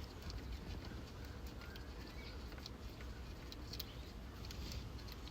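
Faint, irregular light clicks and ticks of hand work on a bolt, with a few faint bird chirps in the background.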